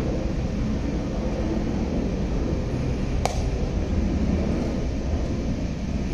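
Steady low outdoor rumble with no clear pitch, and one sharp click about three seconds in.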